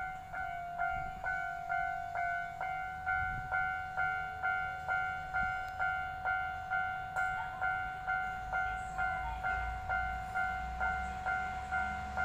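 Electronic railway warning bell striking steadily about two and a half times a second, each ring fading before the next. Under it, the low engine rumble of a Kanto Railway KiHa 310 series diesel railcar grows as the train approaches.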